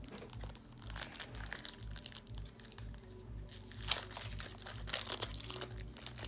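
A foil Pokémon booster pack wrapper crinkling as it is handled and torn open, in a run of sharp crackles, with background music carrying a low beat underneath.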